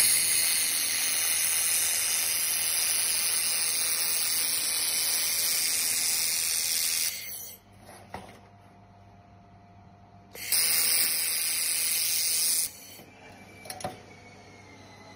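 Handheld 1.5 kW fiber laser welder welding galvanized steel sheet: a loud steady hiss for about seven seconds, a pause, then a second, shorter hiss of about two seconds. A couple of faint clicks fall in the quieter stretches.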